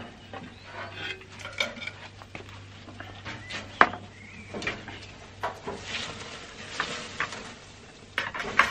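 Clinks and knocks of terracotta flower pots against a metal grill grate as meat is set on the grate and an upturned pot is lowered on top as a lid, with the sharpest knock near the middle, over a faint low hum.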